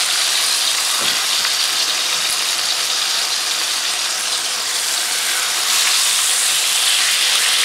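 Bone-in pork chops searing over high heat in an oiled cast-iron skillet, sizzling steadily as they are turned with metal tongs. The sizzle grows a little louder near the end.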